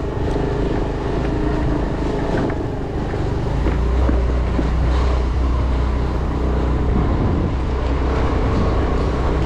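Motor scooter running along a rough dirt street, its engine a steady hum under wind buffeting the microphone. The low rumble grows heavier about three and a half seconds in.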